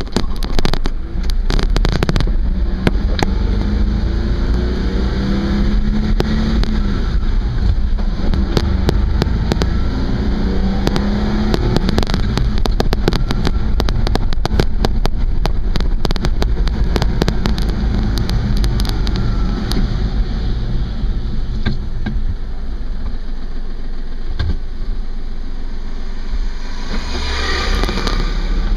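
A car driving, with steady engine and road rumble and many sharp clicks and rattles scattered throughout.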